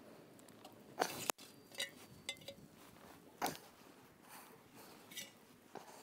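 Meat handled onto a wire barbecue grill over wood embers: a scattering of short, sharp slaps and light metal clinks from the chops going down on the grate and the metal platter, the loudest pair about a second in.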